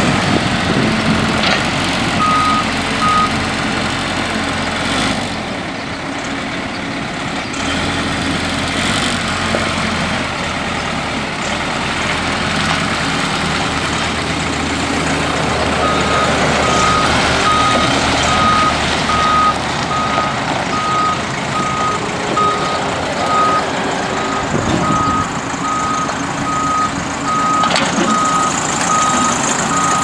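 Case 580L backhoe's four-cylinder Case 4-390 diesel running, with its reverse alarm beeping: a few beeps a couple of seconds in, then steadily at about three beeps every two seconds from about halfway through, a sign that the machine is in reverse.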